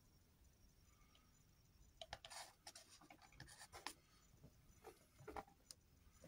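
Faint scratching and light plastic clicks from a clear plastic enclosure's ventilated lid being fitted and pressed into place. The clicks come in scattered bunches from about two seconds in until near the end.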